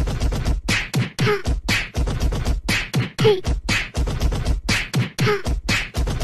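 Beatboxing: a quick, steady run of vocal drum sounds, about four a second, with deep kick-like thumps and a few short falling vocal notes.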